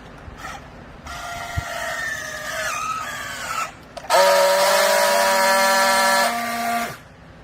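A powered machine's motor whining: a pitched whine that sags and falls in pitch as if working against a load, then, after a short pause, a loud steady buzz for about three seconds that cuts off suddenly.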